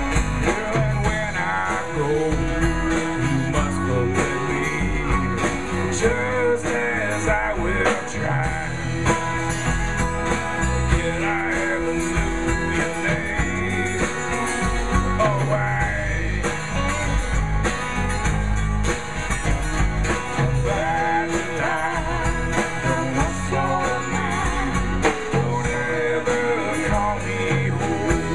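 Live folk-rock band playing a song: strummed acoustic guitars, electric guitar, bass and drums keeping a steady beat, with a singing voice over them.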